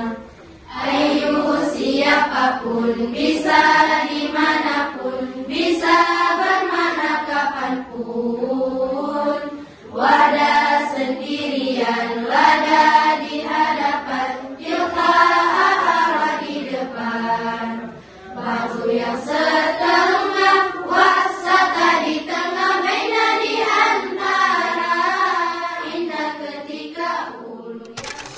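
A group of girls chanting a nazam, a rhymed verse on Arabic grammar (nahwu), together in a slow melodic unison, line by line with brief pauses between phrases.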